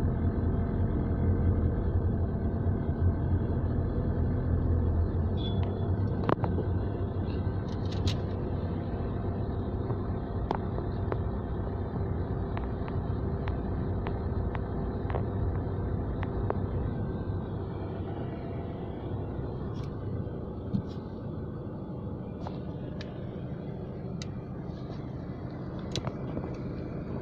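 Steady low road and engine rumble of a moving vehicle heard from inside the cabin, with scattered faint clicks and taps. The rumble eases a little partway through.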